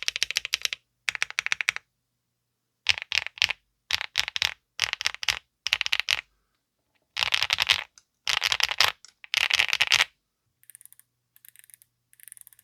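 Mechanical keyboard typing in rapid bursts with short pauses: HMX Sunset Gleam linear switches on an FR4 plate with no foam, in a Leobog Hi75 aluminium board with Key Kobo Motel keycaps. Near the end the clicks turn much fainter.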